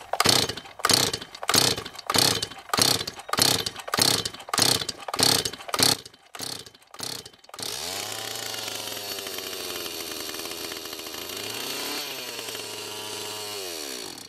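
Stihl 026 two-stroke chainsaw being pull-started on choke: a string of quick pulls on the recoil starter, about two a second, then the freshly rebuilt engine catches about seven and a half seconds in. It runs with an uneven, wavering pitch, its carburettor screws not yet set, for about seven seconds, then cuts off suddenly.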